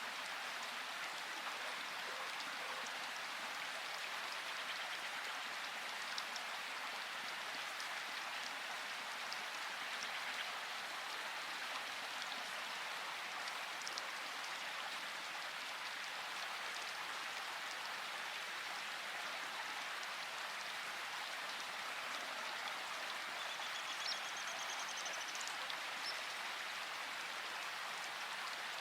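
Steady rain falling: an even hiss with scattered drop taps.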